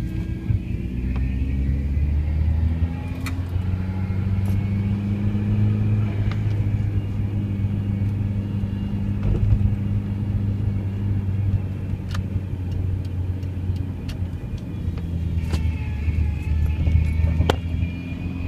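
Car engine running with a whining power-steering noise over the engine hum; the whine bends up and down near the start and again near the end, with a few sharp clicks.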